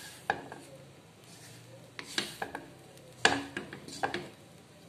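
A wooden spatula stirring and scraping grated coconut around a stone-coated wok as it is dry-fried into kerisik. Irregular soft scrapes and knocks, the loudest just past three seconds in.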